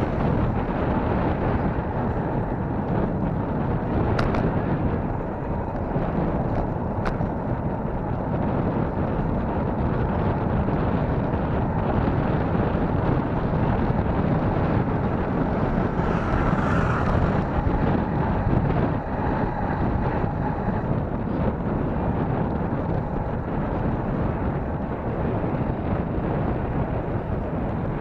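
Steady wind rushing over the microphone of a camera on a moving bicycle, with a few faint clicks.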